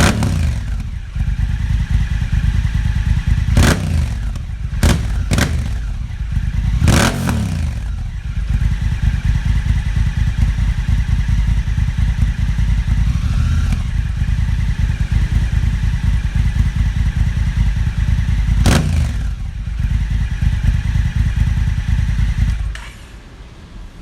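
Honda Africa Twin 1100cc parallel-twin engine idling through a REMUS Black Hexacone aftermarket exhaust. It is given several sharp throttle blips, a cluster in the first eight seconds and one more later. It is switched off near the end.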